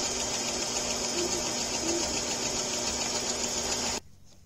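Electric sewing machine running steadily as it stitches the curtain fabric's hem corners, cutting off suddenly near the end.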